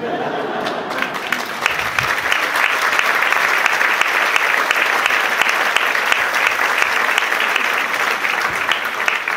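A large theatre audience applauding, hundreds of hands clapping together. It swells over the first second or two and then holds steady.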